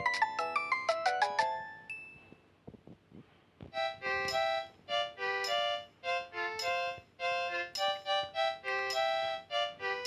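Philips X100 ringtones played through a Nokia 5130 XpressMusic phone's loudspeaker. A quick melody of fast-fading notes ends in the first couple of seconds, a few faint clicks follow, and about four seconds in another tune starts, made of held notes.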